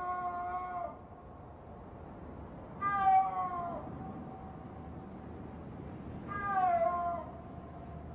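Snow leopard, thought to be a female, calling: three drawn-out wails about three seconds apart, each about a second long and falling slightly in pitch at the end. It is a mating-season call, the only time of year adult snow leopards call to each other, telling a male she is ready to mate.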